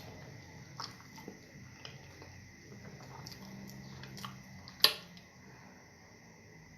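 A person chewing a mouthful of soft, sticky fufu with stew, with wet mouth clicks and squishes and one sharper click about five seconds in.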